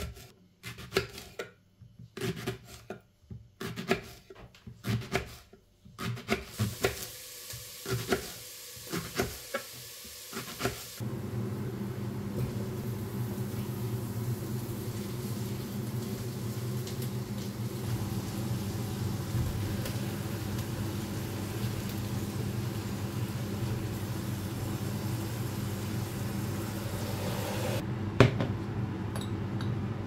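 A knife chopping leeks on a wooden cutting board: quick runs of sharp knocks for about the first ten seconds. Then a steady low hum with a hiss takes over, with one sharp clack near the end.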